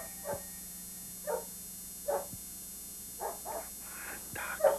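A dog barking in short, separate barks, about eight of them, coming faster and louder toward the end.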